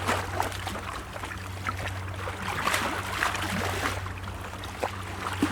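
Sea waves washing and splashing among rocks. The wash swells and recedes, with a surge at the start and another about three seconds in, and small splashes dotted through it.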